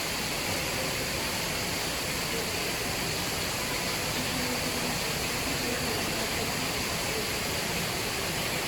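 Small artificial waterfall pouring into a fish pool, a steady rush of falling water.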